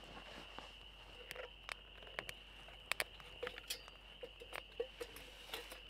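Scattered sharp clicks and knocks, a dozen or so at irregular intervals, the loudest a close pair about three seconds in, over a steady high-pitched chorus in the background.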